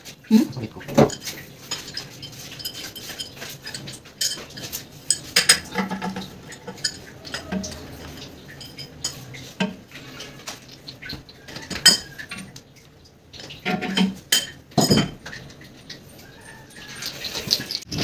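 Irregular clinks and knocks of hard ceramic and metal, from hands and tools working on a toilet bowl and tank.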